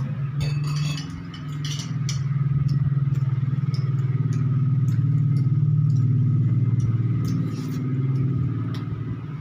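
Eating sounds, with utensils clinking on a plate and light chewing clicks, over a loud steady low motor hum that swells through the middle and eases off near the end.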